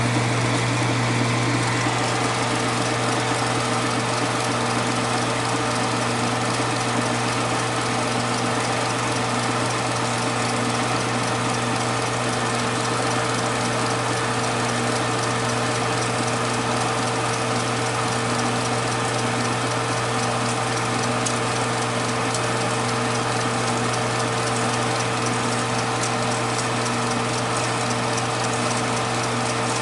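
Kodak Pageant MK-5 16mm film projector rewinding a reel: a steady motor hum with whirring, and a faint beat about once a second.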